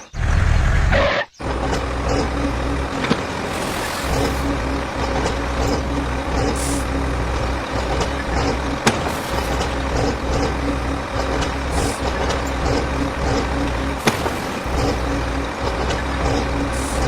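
A heavy vehicle's engine running with a steady low rumble, cutting out briefly about a second in.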